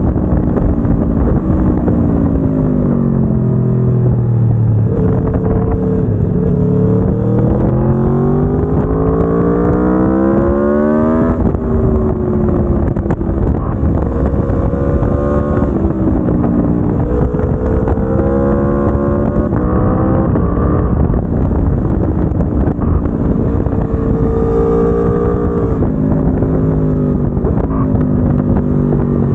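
Aprilia Tuono V4 1100 Factory's V4 engine on its stock exhaust, heard from the bike while riding. The revs sink, then climb steadily for several seconds and drop sharply about eleven seconds in at an upshift, followed by a series of shorter rises and falls as the throttle is opened and closed.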